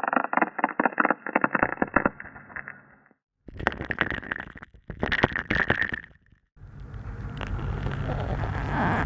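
Ice crackling and cracking underwater, picked up by a hydrophone, in three separate recordings cut one after another. First dense crackling and clicking, then a brief silence and a burst of sharper crackles, then after another short gap a steadier wash of noise with a low rumble and crackles on top.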